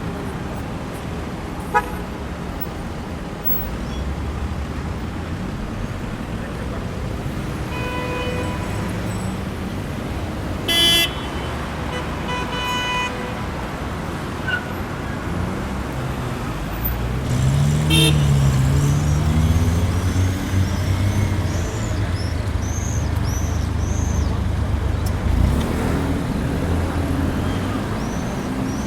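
Busy city crossroad traffic in a jam: steady road noise with car horns honking several times, one short loud blast about eleven seconds in. A loud low engine rumble builds about seventeen seconds in and stays through the rest.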